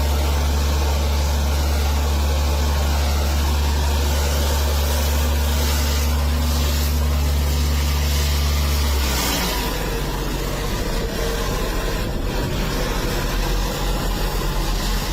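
An engine running steadily with a low hum, which drops in pitch and gives way to an uneven rumble about nine seconds in.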